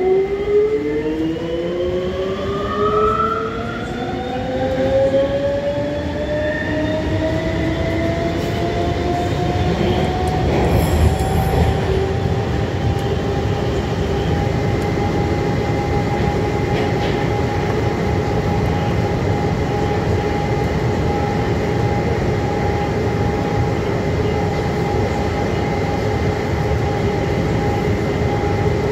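Rubber-tyred VAL208 automated metro train accelerating through a tunnel. The whine of its traction motors rises in pitch over roughly the first ten seconds, then holds steady at running speed over a constant rumble of the running gear.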